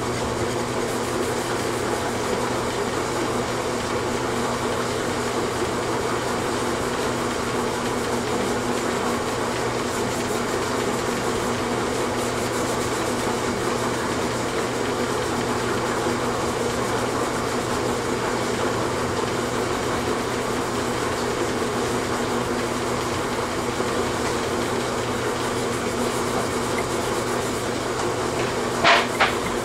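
Steady hum of a running machine, with a low drone that does not change. Two short sharp clicks come just before the end.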